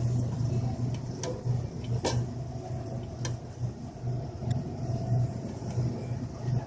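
Shopping cart rolling along a store floor: an uneven low rumble from the wheels, with three sharp clicks or rattles in the first few seconds, over a faint steady hum.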